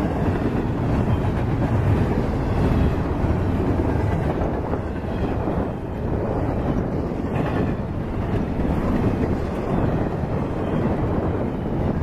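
Double-stack intermodal container cars of a CSX freight train rolling past, a steady rumble of steel wheels on rail.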